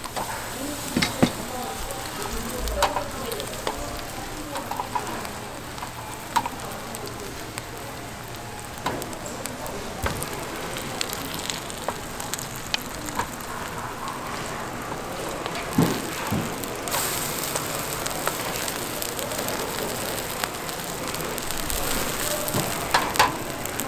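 Korean pancake (buchimgae) batter sizzling as it fries in oil in a nonstick pan, with scattered clicks and taps of spatulas against the pan. The sizzle grows brighter and louder about two-thirds of the way through.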